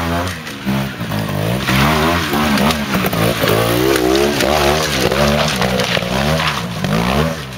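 Trials motorcycle engine revving up and down in quick, repeated throttle blips as the bike picks its way up a steep rocky climb.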